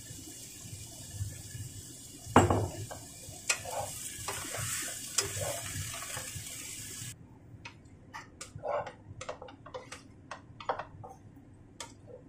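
Cauliflower and carrots sizzling in a frying pan while a utensil stirs them, knocking and scraping against the pan with one loud clack about two seconds in. About seven seconds in the hiss cuts off suddenly, leaving only a string of short clicks and taps of the utensil against the pan.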